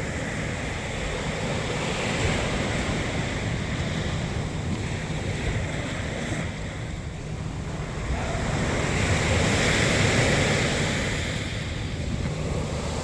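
Sea waves washing onto the shore, with a small surge about two seconds in and a louder wave building from about eight seconds in and easing near the end. Wind buffets the microphone throughout as a steady low rumble.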